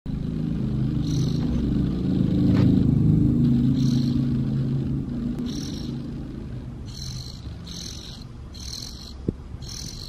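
Fledgling oriental magpie-robin giving short, high begging calls: a few at first, then about once a second in the second half. A low rumble, loudest in the first half, fades away under the calls.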